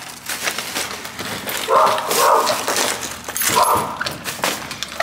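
Dogs whining and yipping behind a door, in two bursts, about two seconds in and again after about three and a half seconds, with scattered knocks and clicks.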